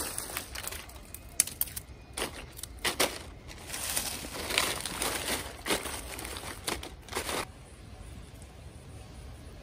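Dry leaves and twigs rustling and crunching as they are handled, in an irregular run of sharp crackles that stops abruptly about three-quarters of the way through, leaving a quiet steady hiss.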